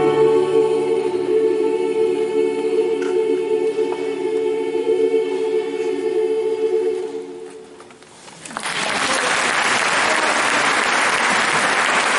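Women's choir holding a sustained final chord, which dies away about seven seconds in; about a second later the audience breaks into applause that continues to the end.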